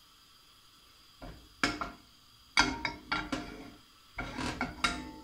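Kitchen clatter at a gas hob: a frying pan shifted and knocked on the metal pan grate and a utensil handled. It comes as a series of short, sharp knocks and scrapes beginning about a second in, with a brief ringing note near the end.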